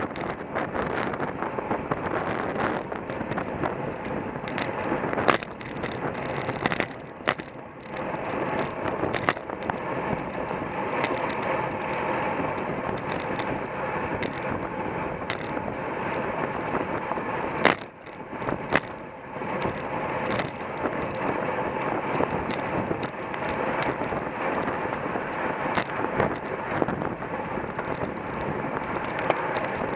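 Wind rushing over the microphone of a camera mounted on a bicycle in a road race, with road and bike rattle and scattered sharp knocks as the bike goes over bumps.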